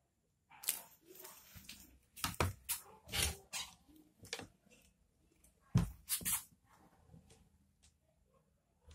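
Scattered knocks and scrapes from a broom being poked and banged along a tiled floor and against a wooden wardrobe, with soft rustling between them; the loudest knocks come about six seconds in.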